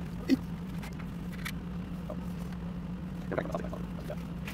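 Steady low background hum with a few light clicks and taps from hands handling a bare circuit board and laptop, including one sharper knock about a third of a second in.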